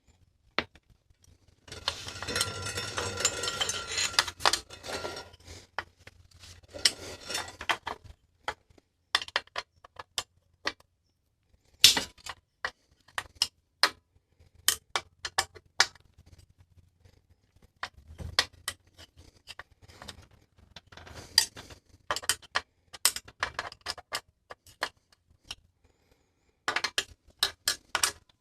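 Metal hand tools clicking and clinking against bicycle crank parts during crank removal, with a stretch of rapid, continuous clicking about two seconds in and scattered single clinks after it.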